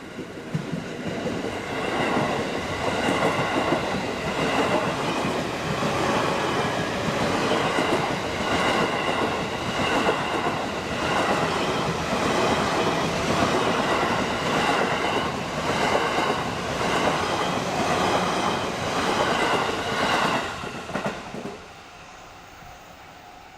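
JR East E531 series electric commuter train passing over a level crossing, its wheels clacking over the rail joints in a steady rhythm. The sound cuts off about 21 seconds in as the last car clears.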